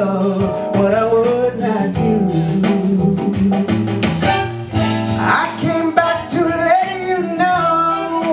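A man singing a sustained, gliding melody into a handheld microphone over a band accompaniment with guitar.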